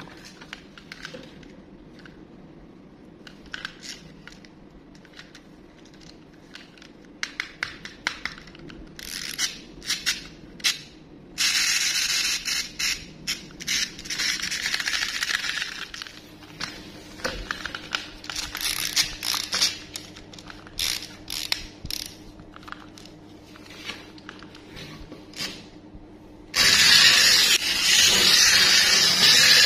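Plastic toys clicking and scraping as they are handled in a cardboard box. Near the end a battery-powered toy caterpillar's small motor starts running with a loud, steady whirr as it crawls along the tabletop.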